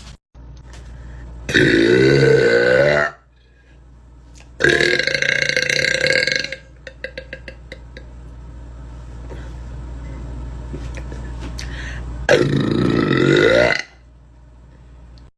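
A woman burping loudly three times. Each burp is long and drawn out, lasting one and a half to two seconds, with a longer gap before the third.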